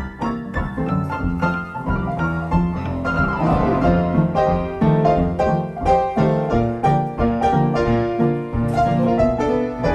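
Background piano music: a steady run of quick notes with a bass line underneath.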